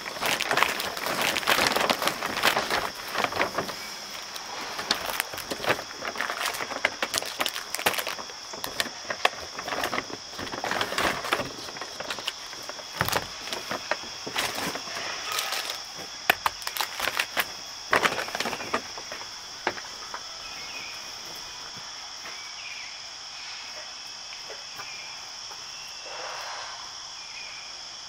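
A steady, high-pitched chorus of crickets or katydids. For about the first two-thirds it is overlaid by close, irregular rustling and clicking, which then stops and leaves the insects alone.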